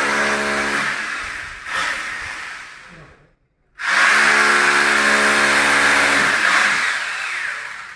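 Corded electric drill boring holes into masonry for wall plugs, a steady motor whine over grinding noise. It fades out and stops about three seconds in, then starts again abruptly and runs for about four seconds.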